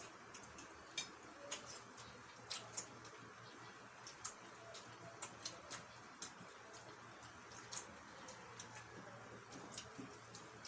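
Eating sounds: about a dozen small, sharp clicks and soft smacks at irregular intervals, over a faint low hum.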